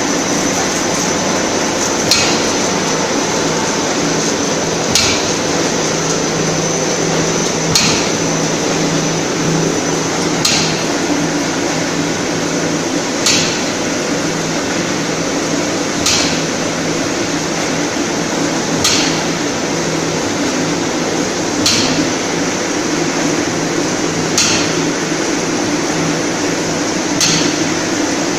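A JINLUN 10-foot spindleless veneer peeling lathe running steadily, a loud mechanical noise with a thin high whine. A sharp clack repeats at an even pace, about every three seconds.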